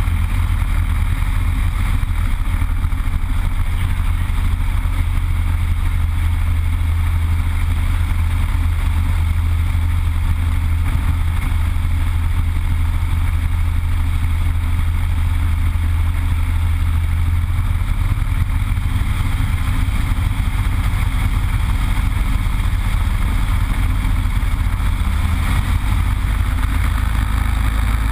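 Yak-52's nine-cylinder Vedeneyev M-14P radial engine running steadily at low power on the ground, heard from inside the cockpit with the propeller wash rushing past.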